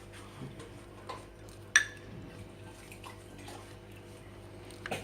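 Soft handling sounds of a pastry brush dabbing beaten egg onto thin warqa pastry sheets, with one sharp clink a little under two seconds in and a smaller click near the end.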